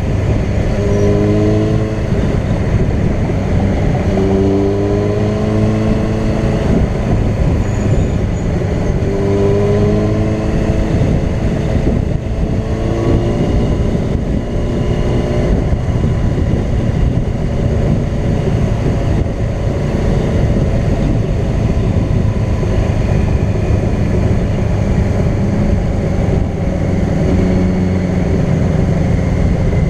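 Sport bike engine running at highway speed under a constant rush of wind and road noise. Its pitch rises several times in the first half as the throttle is opened, then holds steadier near the end.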